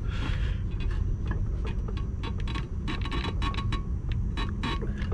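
Brake pads and caliper hardware clicking and tapping irregularly as the pads are compressed and worked into the rear brake caliper, with a steady low rumble underneath.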